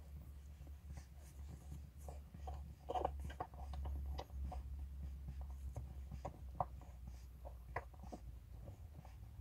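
Puppies suckling at their mother's teats: soft, irregular wet smacks and clicks, busiest in the middle, over a low steady hum.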